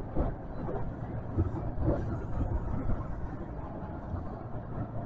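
Steady low rumble and hum inside the cab of a subway train standing at an underground platform, with faint, irregular platform noise over it.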